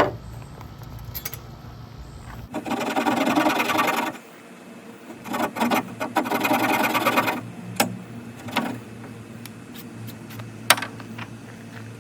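Dogfennel hand-drill spindle spun fast between the palms in a notch in a very hard tulip poplar fireboard, wood grinding on wood in two bursts of about one and a half and two seconds. A few sharp clicks and taps come between and after.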